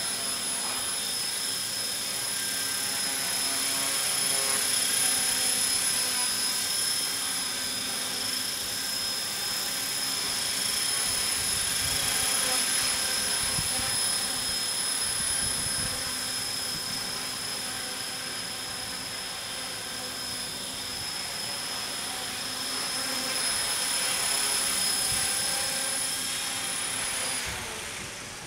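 Align T-Rex 450 electric RC helicopter with a four-blade scale rotor head hovering low: its motor and rotors give a steady high whine that swells and eases slowly. Near the end the motor cuts and the rotors spool down as it settles. The tail is still shaky, which the flier puts down to the I (heading) gain still being set too high.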